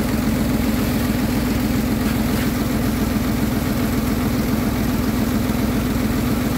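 An engine running steadily at an even, unchanging speed, like idling, with a constant hum and no revving.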